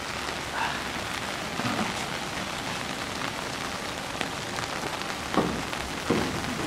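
Steady rain falling, an even hiss with scattered sharper drop taps. Two brief louder sounds come near the end.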